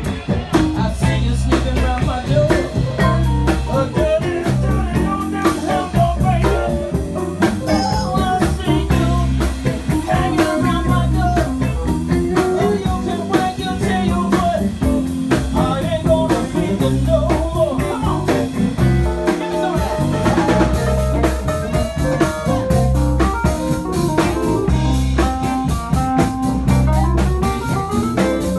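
Live blues band playing: electric guitar, electric bass, drum kit and a stage keyboard, with a woman singing lead.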